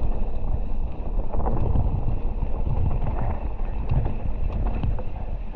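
Mountain bike riding down a rocky, rooty singletrack trail: a steady low rumble of tyres and bike rattling over the ground, mixed with wind buffeting the camera microphone.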